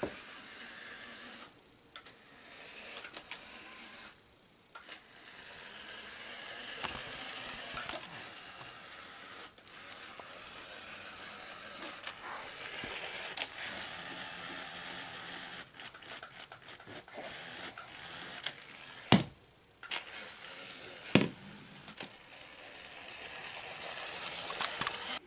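Small electric motor and plastic gears of a battery-powered Minnie Mouse toy airplane whirring as it drives, stopping and starting a few times, with occasional clicks and knocks of the plastic toy being handled.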